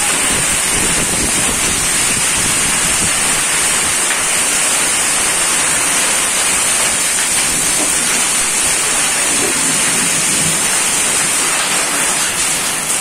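Heavy wind-driven downpour, a loud, steady, dense hiss of rain, with gusts buffeting the microphone as a low rumble, strongest in the first few seconds.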